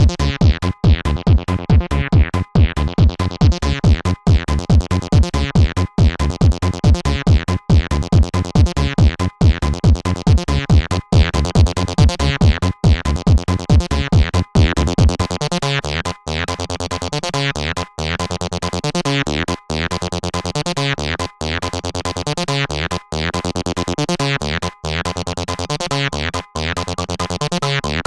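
Electronic acidcore track: synthesizer riffs over a steady, fast drum-machine beat. About halfway through, the heavy kick and bass drop out, leaving the synth pattern running on its own.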